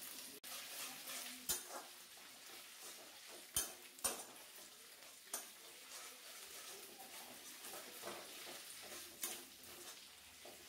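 Metal spatula stirring in a metal kadai, with about five sharp clinks of spatula on pan over a faint sizzle of ginger paste and spices frying in oil.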